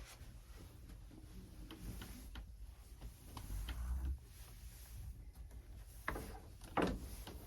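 Clothes being handled: scattered light clicks, with a louder rustle a little before the end.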